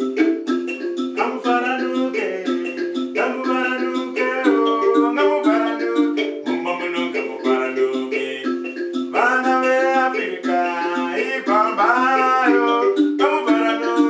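Nyunga nyunga mbira playing a fast repeating pattern of plucked metal-key notes, with a man singing over it in phrases from about a second in.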